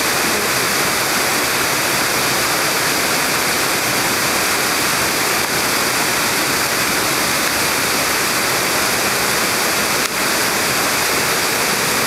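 Waterfall and rapids rushing steadily, high muddy water pouring over broad rock ledges.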